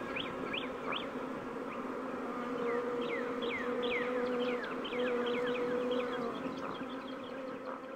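Bees buzzing in a steady hum, with many short high chirps falling in pitch over it, thickest in the middle seconds.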